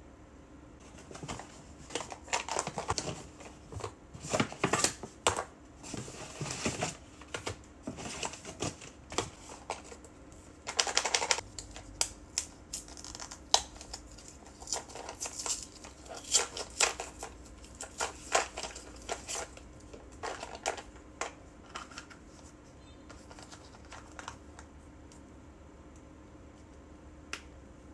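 Packaging and small plastic items being handled and opened: irregular rustling, crinkling and clicking with taps of hard plastic. The handling stops after about 22 seconds, with one last click near the end.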